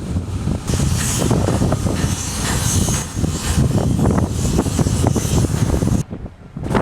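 Strong gusting storm wind buffeting the microphone with a heavy rumble, under a loud rushing hiss that swells for a few seconds. The sound drops away abruptly for a moment near the end.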